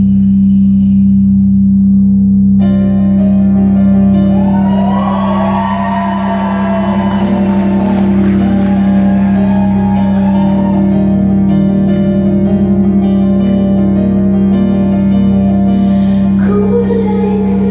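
Live concert music heard from the audience: a loud, steady low drone, with more layers of sustained tones coming in about three seconds in and sliding pitches laid over them. This is the drawn-out intro of the song.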